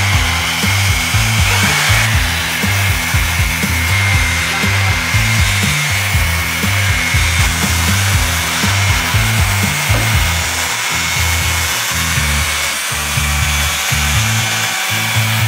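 Ryu ROS13-1A 80-watt electric orbital sander running on a wooden plank: a steady hiss with a thin steady whine, mixed under background music with a pulsing bass beat.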